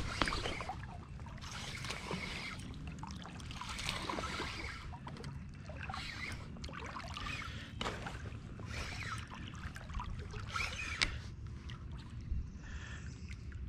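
Water splashing and trickling against a kayak in irregular bursts every second or two, over a steady low rumble, with a sharper splash about 11 seconds in.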